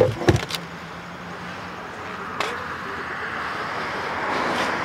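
A few sharp clicks and knocks in the first half-second, with one more about two and a half seconds in, from handling small-engine parts. Under them, a car's road noise swells steadily as it approaches.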